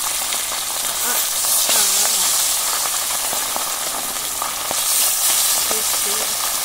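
Pabda fish frying in hot mustard oil in an aluminium karahi: a steady high sizzle with scattered crackles. It swells twice, near two seconds and near five, as more fish are laid into the oil.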